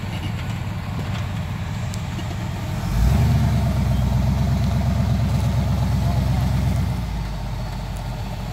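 Off-road rock crawler's engine running at idle, then revved up about three seconds in as the rig climbs. It holds there for about four seconds, then drops back to idle.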